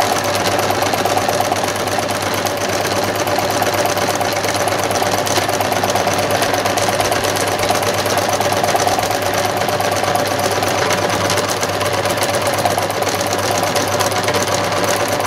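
Domestic sewing machine running steadily at speed for free-motion stitching, its motor humming under rapid, even needle strokes.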